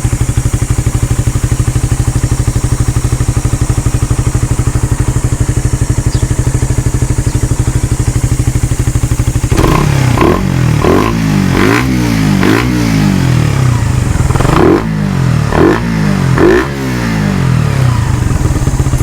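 Suzuki Raider 150 Fi single-cylinder motorcycle engine breathing through the stock muffler canister of the carbureted Raider R150. It idles steadily, then from about ten seconds in it is revved in a series of quick throttle blips that rise and fall.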